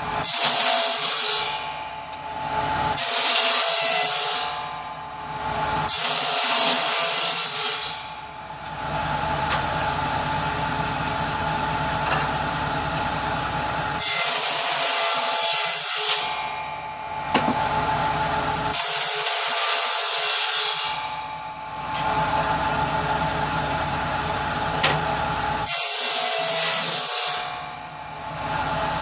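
Power saw cutting kindling wood: a steadily running motor broken by six short cuts of one to two seconds each, each cut a loud hissing rasp as the blade goes through the wood.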